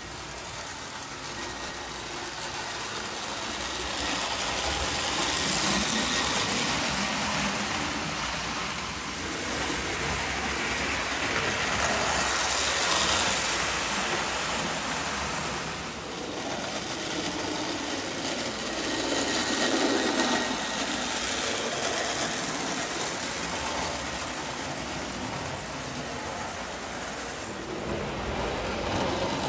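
Marx 333 diecast 4-6-2 Pacific toy steam locomotive running on three-rail tinplate track with a string of passenger coaches: a steady whirring motor and wheel clatter. It grows louder and fades again about three times as the train laps past close by.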